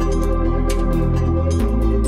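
Background music: electronic ambient music with sustained synthesizer chords over a bass and a beat. The bass note changes about one and a half seconds in.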